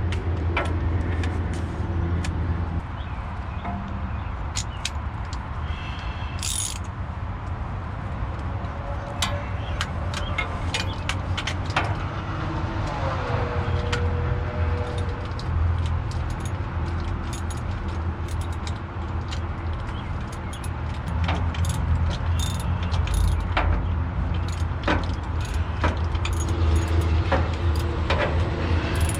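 Steady low engine hum from a nearby vehicle, with scattered short metallic clinks and taps of tools and bolts as a new starter is fitted to a truck engine.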